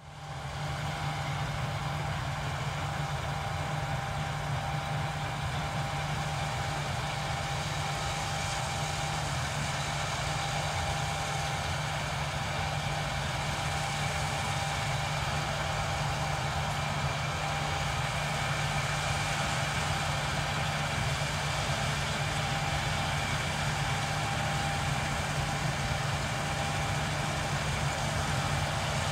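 John Deere combine harvester running steadily while harvesting barley: a constant low engine drone with a few thin steady whines above it, fading in over the first second.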